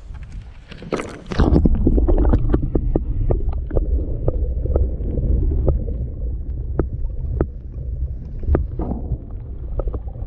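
A camera is plunged into lake water about a second and a half in. From then on the sound is muffled and rumbling, with scattered sharp clicks and knocks heard through the water.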